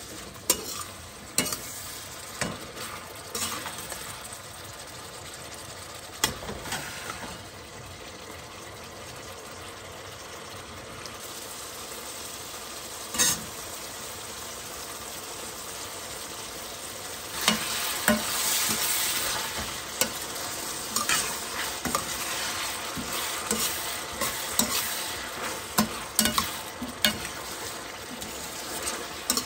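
Food sizzling in a hot pan while a utensil stirs it, with scattered clicks and scrapes against the pan. The sizzle swells for a few seconds a little past the middle.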